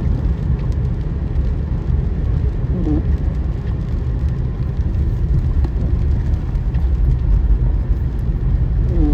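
Steady, loud low rumble, with a short faint squeak about three seconds in and another near the end.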